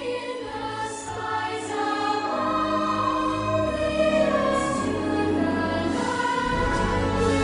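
Orchestral show soundtrack with a choir singing over it, swelling about two seconds in; a deep bass comes in near the end.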